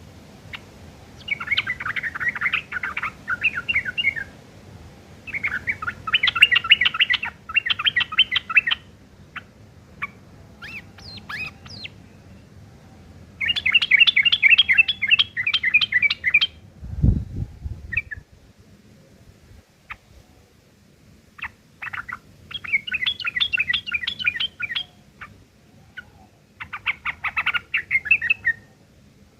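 Yellow-vented bulbul singing in repeated bursts of rapid, rough chattering phrases of a few seconds each, its song filled with mimicked long-tailed shrike calls, with short single notes between the bursts. One low thump about two-thirds of the way in.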